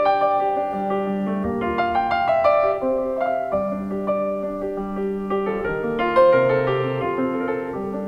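Solo piano played live: a slow passage of held chords under a melody line, with a deeper bass note coming in about six seconds in.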